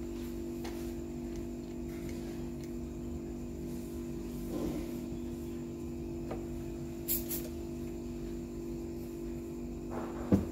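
Steady low electrical hum, with a few scattered clicks and a sharper knock near the end.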